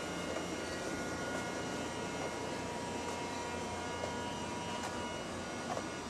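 Steady hum with thin high whining tones over faint street background, and a couple of soft ticks near the end.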